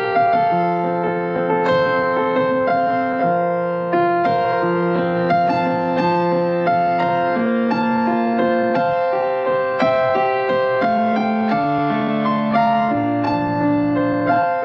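Piano music with no singing: a melody of struck notes over held lower notes.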